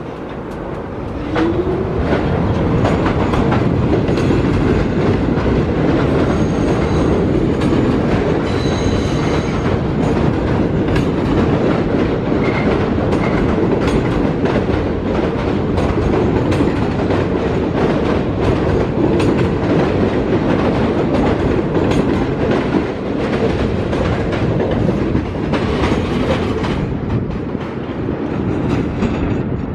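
An R68-series New York City subway train pulling out of the station. About a second and a half in its motors start up with a brief rising whine, then the cars run past with a steady rumble and wheels clicking over the rail joints.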